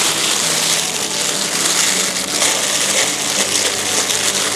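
Thin plastic food-handling gloves crinkling and rustling without a break as gloved hands rub marinade over a raw whole chicken and push lemongrass into its cavity.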